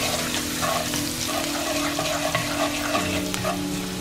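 Minced garlic sizzling in hot oil in a wok, sautéed until fragrant, while a wooden spatula stirs it and scrapes against the pan.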